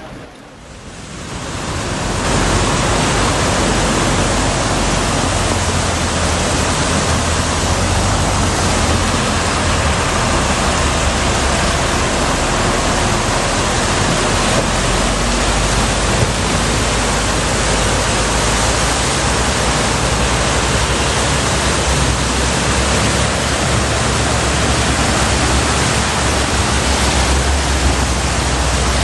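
Fast-flowing flash floodwater rushing down a street in a torrent: a loud, steady rushing noise with a deep rumble underneath, swelling in over the first two seconds.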